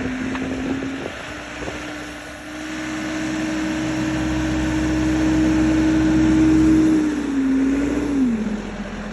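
Backhoe engine running, its speed rising about a second in and held higher and louder while it scoops dirt, then dropping back toward idle near the end.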